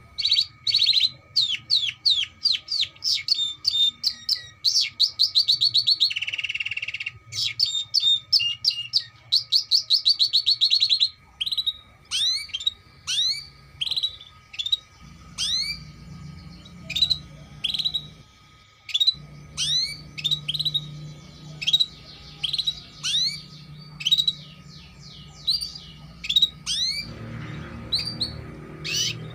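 Domestic canary singing: fast rolling trills and runs of rapid repeated notes with a short buzzy passage, giving way about halfway through to a series of repeated rising chirps.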